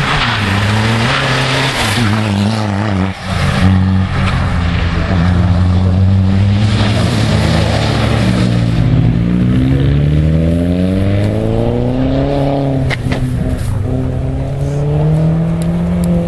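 Rally car engine accelerating hard through the gears, its pitch climbing steadily and dropping back at each shift, with a few sharp cracks about thirteen seconds in.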